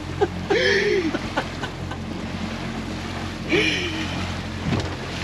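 Motorboat engine running with a steady low hum, with two short drawn-out vocal calls from a man, about half a second in and again near four seconds.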